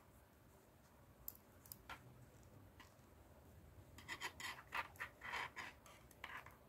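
Faint hand-knitting sounds: double-pointed knitting needles clicking softly now and then, and acrylic yarn rubbing and scraping on the needles as stitches are wrapped and worked, with a run of scratchy rubbing from about four seconds in.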